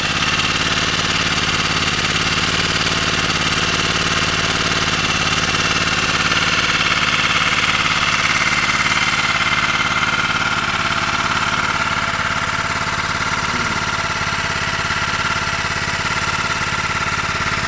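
Small portable generator set's engine running steadily on biogas, heard close up.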